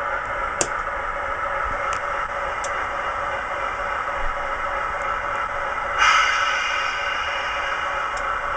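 Recorded Class 60 diesel engine sound from a Howes DCC sound decoder in a Hornby OO-gauge model locomotive, played through a bass reflex speaker as the model runs slowly. The engine sound is steady, with a few sharp clicks early on. About six seconds in it suddenly grows louder and brighter.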